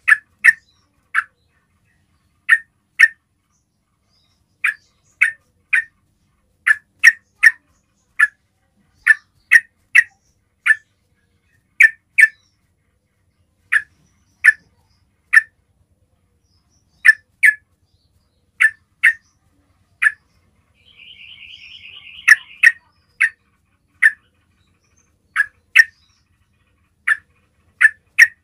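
Yellow-vented bulbul (trucukan) giving short, sharp chip calls, often in quick pairs, about one call or pair a second. This is its basic call, used to call up other trucukan. A faint, rapid trill sounds for about two seconds around three-quarters of the way through.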